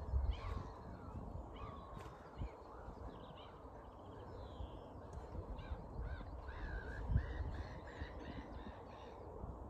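Wild birds calling around a lake, with short chirps throughout and a run of quick repeated calls in the second half. Wind rumbles on the microphone underneath.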